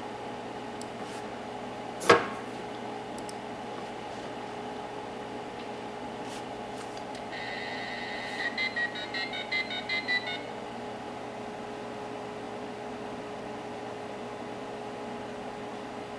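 The Tandy 1000 SL's 2400-baud modem dials out through its speaker. A sharp click comes about two seconds in. Near the middle there is a short steady tone, then a quick run of about eleven touch-tone dialing beeps, over a steady hum from the computer.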